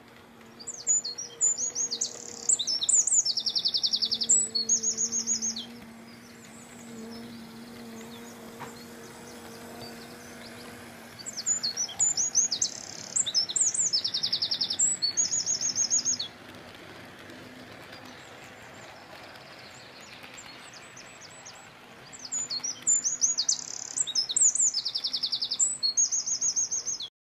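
A songbird singing three phrases of rapid high trills and chirps, about ten seconds apart, over a faint steady low hum.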